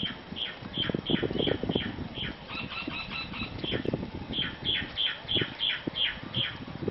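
A bird calling in a rapid series of short, sharp notes, each falling in pitch, about three a second, with a brief break of different, busier notes midway.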